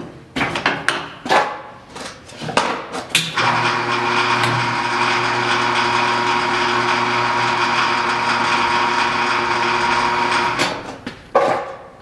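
Ercolina SB48 electric tube bender: several sharp clicks and clunks as the tube is clamped and set, then the drive motor runs with a steady hum for about seven seconds while the die swings the tube through a bend. It stops a second before the end, followed by more knocks.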